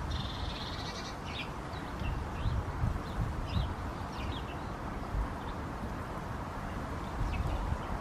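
Small garden songbirds calling: a rapid run of high notes in the first second, then short, high chirps scattered through, over a low rumble.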